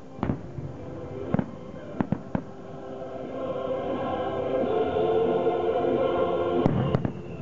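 Aerial fireworks shells bursting in sharp bangs: one near the start, one about a second and a half in, a quick cluster of three around two seconds, and the loudest two close together near the end. Music grows louder underneath from about three seconds in.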